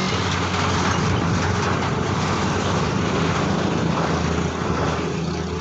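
Steady noise of a motor vehicle running close by: a constant low hum under an even hiss, with no break.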